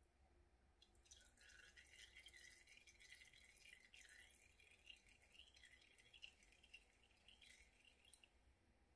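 Faint trickle and dripping of oil running from an upturned plastic squeeze bottle into a pitcher of oil. It starts about a second in and stops shortly before the end.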